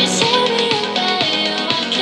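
Pop song with guitar and a steady beat played back through a Bluetooth speaker for a sound test.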